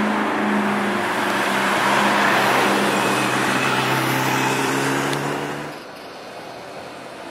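McLaren MP4-12C's twin-turbo V8 pulling away down the road with a loud, steady exhaust note over passing traffic. About six seconds in it drops to a low traffic hum.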